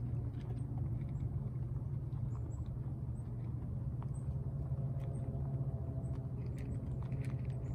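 Rabbits eating from a shared bowl, with small scattered clicks of chewing. A steady low hum runs underneath and is the loudest sound.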